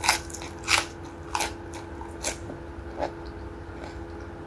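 Crisp crunching of a raw lettuce leaf being bitten and chewed close to the microphone: about five sharp crunches in the first three seconds, then quieter chewing.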